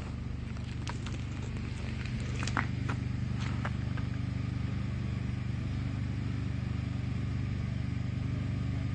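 A large engine running steadily, a low even hum. Over the first four seconds there are a few sharp crunches of footsteps on broken glass and debris.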